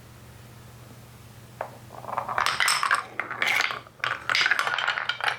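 Balls clattering along a Trix Track marble run: a single click, then three runs of rapid rattling clicks.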